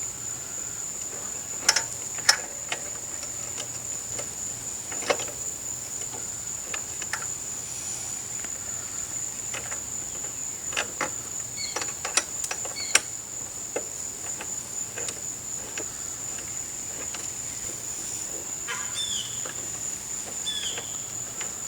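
Steady high insect trill, cricket-like, running without a break, with scattered sharp metallic clicks and clinks of hand tools and bolts being handled. A few short falling chirps come near the end.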